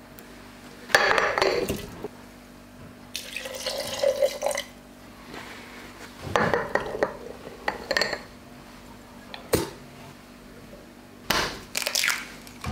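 Pancake batter ingredients going into a glass jar one after another: liquid poured in, oat flour tipped in from a bowl, and near the end an egg cracked and emptied into the jar. The sound comes as several separate short bursts with pauses between them.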